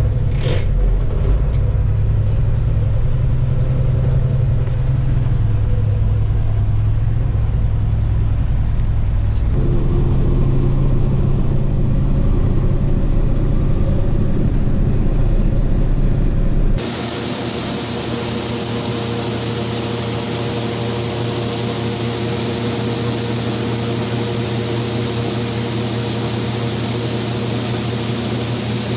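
A vehicle engine runs with a steady low drone, and its pitch shifts about ten seconds in. About seventeen seconds in, the sound changes abruptly to a steady machinery hiss with a hum underneath.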